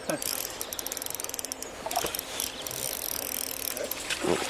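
Spinning reel being cranked to retrieve a lure, its gears ticking rapidly. A short, louder sound comes near the end.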